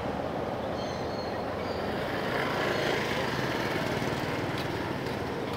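Steady outdoor background rush, an even noisy hum with no distinct events, swelling slightly midway.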